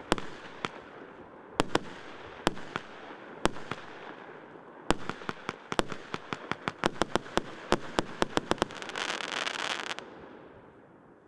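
Consumer fireworks battery "Snow Town" (СЛ162099) firing its final shots. Separate sharp bangs come about every half second to a second, quicken into a rapid volley about five seconds in, and end in a dense hissing crackle lasting about a second before the sound dies away.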